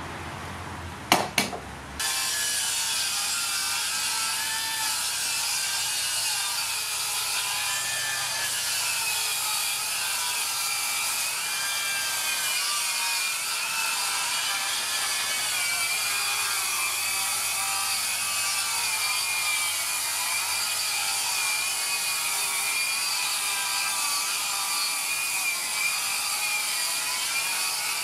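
Makita 40V HS009G 235 mm cordless circular saw ripping along a long board of 45 mm thick pine at full cutting depth, its motor whine wavering slowly in pitch as the load changes. Two sharp clicks about a second in, then the cutting sound starts abruptly at about two seconds.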